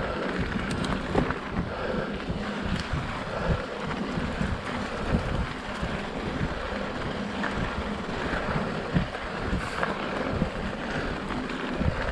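Wind buffeting the microphone while mountain biking, a steady gusty rumble with a few scattered knocks.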